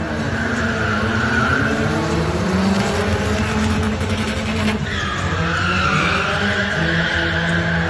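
Cars drifting: engines revving hard with long tyre squeals, one in the first couple of seconds and a longer one from about the middle on.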